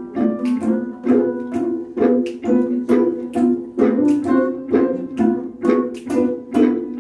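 A plucked string instrument playing a repeated figure of short notes, about two a second, each with a sharp attack and a quick decay.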